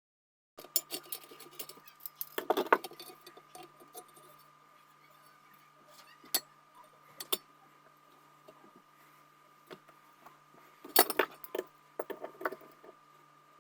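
Metal parts and hand tools of a ceiling fan being handled during disassembly: clinking and rattling in two bursts, with a few single clicks between, over a faint steady hum.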